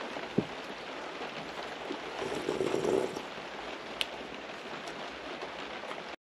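Soup being eaten with a metal spoon from a plastic tub: two short spoon clicks, about half a second in and again at four seconds, over a steady even hiss. The sound cuts off just before the end.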